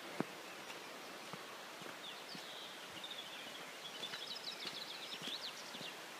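A songbird singing a long run of rapid high notes and trills from about two seconds in. Underneath are a steady outdoor hiss and scattered footsteps on a wet gravel track, with a sharp knock just after the start.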